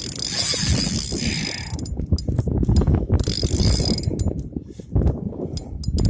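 Fishing reel ratcheting in rapid clicks, with two stretches of higher hissing whirr, as line runs through it.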